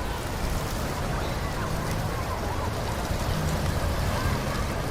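Steady outdoor background noise with faint distant voices of people talking.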